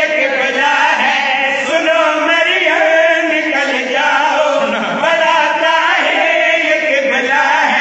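Men chanting a devotional qasida over a microphone, one continuous melodic line with wavering, drawn-out notes.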